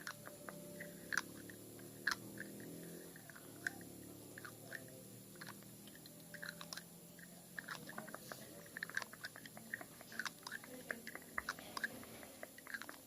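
Slow, light tapping close to the microphone: irregular sharp little clicks, a few a second, growing busier in the second half, over a faint low drone in the first half.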